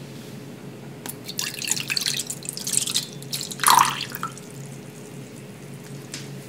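Milk poured in a thin stream into a small enamel saucepan, splashing for about two seconds, with a louder splash about three and a half seconds in as the pour ends.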